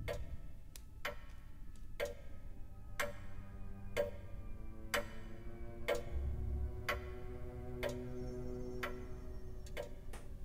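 Grandfather clock ticking about once a second, each tick ringing briefly, with fainter clicks between, over a faint low steady drone.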